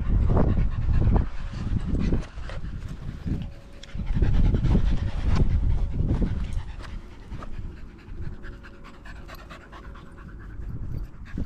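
A dog panting close to the microphone in quick, repeated breaths, louder in the first half and softer after.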